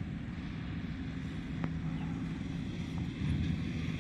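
Motorcycle engine approaching at a distance, a steady low hum that grows louder in the last second or so.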